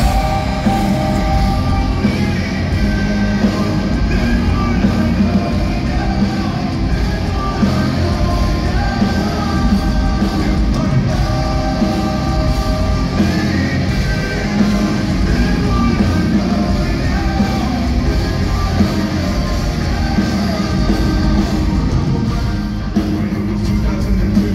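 A hard rock band playing live through a venue's PA, with drums, bass and electric guitars and a lead singer singing throughout, heard from the crowd.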